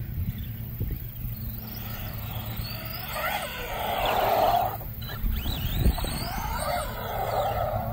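Electric RC short-course truck (Arrma Senton Mega with a HobbyWing 3660 4000KV brushless motor on 3S) driving on concrete: the motor's whine rises and falls in pitch as it speeds up and slows, twice, along with the rush of its tyres. The first pass, about four seconds in, is the loudest.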